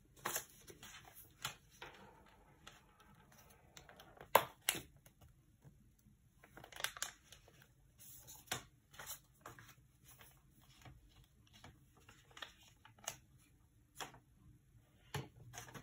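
Faint rustling and crinkling of folded paper as a glue stick is rubbed along a paper fan, with scattered small clicks and taps; the sharpest tap comes about four seconds in.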